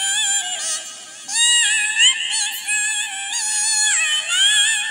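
A sholawat melody sung in a high, synthetic cat-like voice, gliding from one held note to the next, with a brief dip about a second in.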